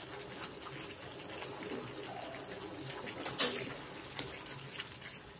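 Thick palm jaggery halwa being stirred with a silicone spatula in a nonstick frying pan: soft wet squelching with many small pops and clicks from the sticky mass, and one sharper, louder sound about three and a half seconds in. The halwa is cooked to the stage where the ghee has separated out.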